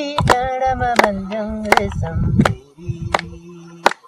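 A voice singing a song with long held, wavering notes, over a steady beat of sharp strikes about one every 0.7 seconds.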